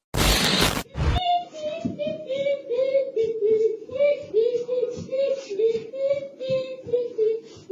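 A child singing a tune, about three notes a second, picked up through a video doorbell's microphone; a short burst of noise opens it.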